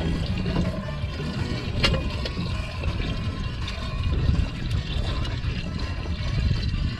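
Water splashing and trickling in a steady wash, over a low rumble, with one sharp click about two seconds in.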